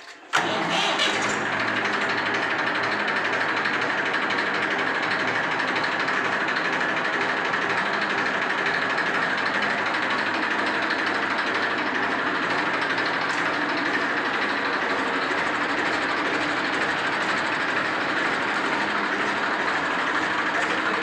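Massey Ferguson 241 DI tractor's three-cylinder diesel engine starting on its electric self-starter and catching about half a second in. It then idles steadily.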